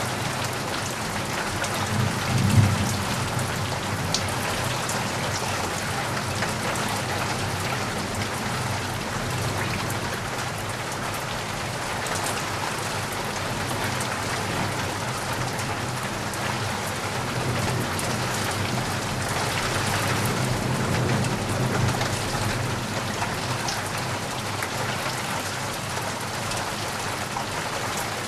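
Steady rain pattering on surfaces, with a low rumble of thunder about two and a half seconds in and a longer, rolling rumble about two-thirds of the way through.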